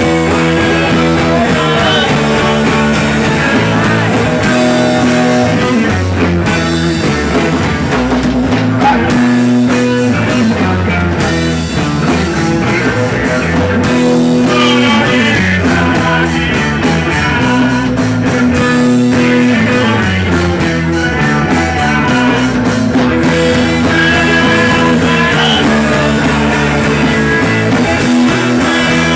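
Live rock band playing loudly, with electric guitar and drums.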